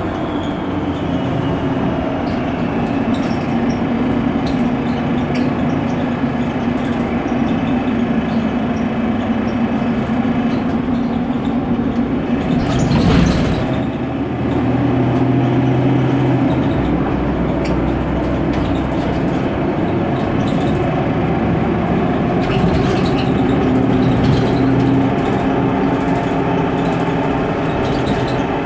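Mercedes-Benz Conecto NGT city bus driving, heard from inside the cabin: the steady drone of its OM 936G natural-gas engine with road and cabin noise. A brief loud jolt or bump about 13 seconds in.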